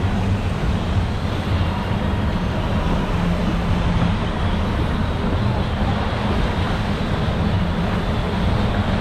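Rushing, churning water of a river rapids ride heard from aboard the raft: a steady noise with a heavy low rumble.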